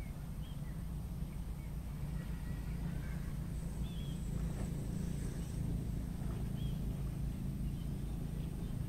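Outdoor ambience: a steady low rumble with a few short, faint, high bird chirps scattered through it.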